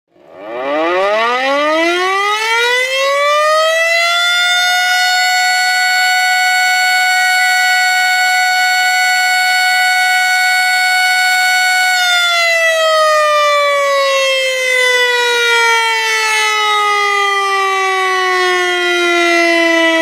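Outdoor warning siren of the tornado or civil-defense kind, winding up from a low pitch to a steady high wail over about four seconds. It holds that tone for about eight seconds, then slowly winds down in pitch.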